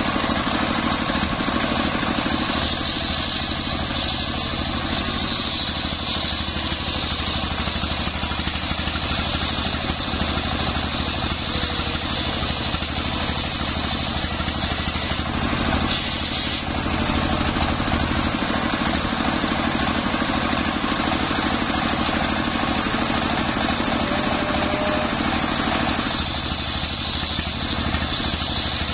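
Stationary single-cylinder diesel engine running steadily, belt-driving a circular saw blade. The blade cuts lengthwise through a long waru log with a high whine from about two seconds in, breaks off around the middle, and resumes near the end.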